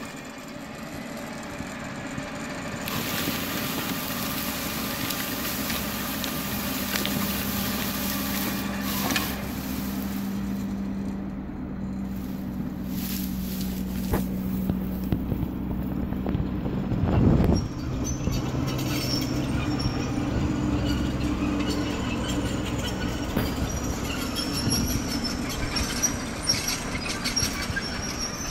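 Diesel engine of a 1979 International-Dresser TD8G crawler dozer running steadily under load, its pitch and level shifting as it works, with one brief loud burst about seventeen seconds in. Faint high squeaks and ticks come and go in the second half.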